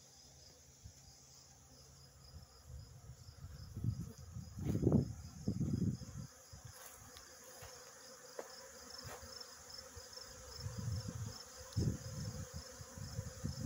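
Many honeybees buzzing around stacked hive boxes, with louder low buzzes as bees fly close past twice, at about four seconds in and again near the end. A cricket chirps steadily in the background.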